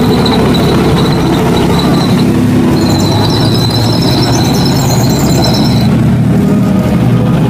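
Leopard 2 main battle tank driving through shallow water: a loud, steady rumble of engine and tracks, with a thin high squeal from the running gear that is strongest in the middle.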